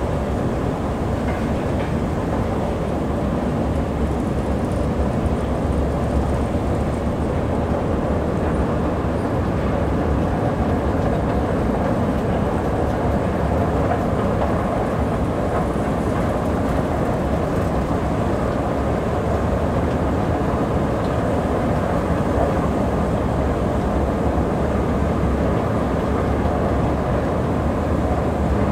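A long metro-station escalator running steadily while being ridden upward: a continuous low rumble from the moving steps and drive, unchanging throughout.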